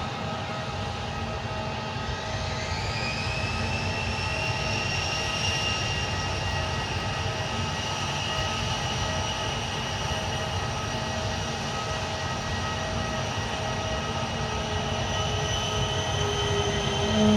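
Airliner engines running with a steady whine over a low rumble; about two seconds in the whine rises in pitch and then holds as the engines spool up, growing slowly louder.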